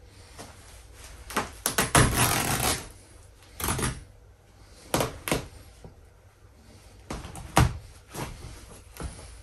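Plush fabric of a large stuffed horse being torn and yanked apart by hand: a series of short ripping and rustling noises, the longest and loudest about two seconds in, with further sharp rips around four, five and seven and a half seconds in.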